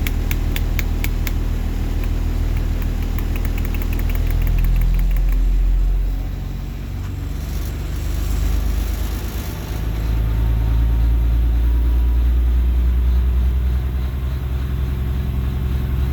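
School bus diesel engine running, heard from the driver's seat, with a few sharp clicks in the first second and a half. The engine sound dips and changes between about six and ten seconds in, then settles into a steady, stronger run.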